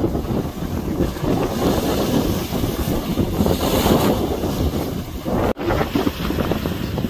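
Wind buffeting the microphone over the wash of sea swell breaking on a rocky shore, with a louder surge of hissing surf about three and a half seconds in. The sound cuts out for an instant a little past five and a half seconds.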